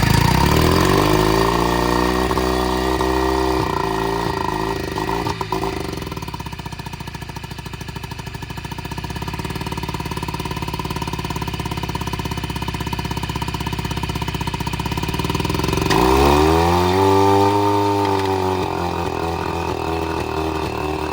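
Small 10-horsepower two-stroke outboard motor running loud and rough. It is revved up and back down twice, once right at the start and again about 16 seconds in.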